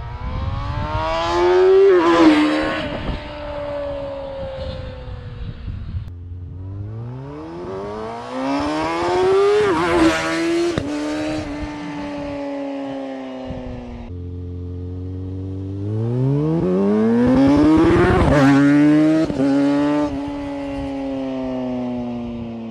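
2020 Kawasaki ZX-6R 636's inline-four engine blipped from idle three times, each rev rising sharply in pitch and then falling slowly back toward idle, heard at its exhaust.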